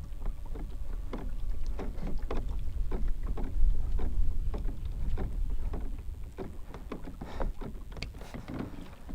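Small boat on the water: irregular slaps and knocks of water against the hull over a steady low rumble.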